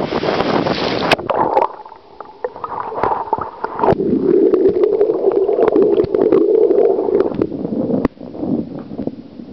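Seawater heard through the microphone of a waterproof digital camera dunked in ocean surf: open wind and surf noise cuts off about a second in as the camera goes under, giving way to muffled sloshing and gurgling with scattered clicks and knocks and a steady low rush. About eight seconds in the rush drops away as the camera comes back up.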